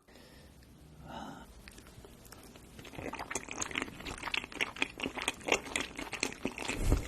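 Close-up wet chewing and mouth sounds of someone eating soft raw fish, a dense run of small irregular clicks and smacks starting about three seconds in.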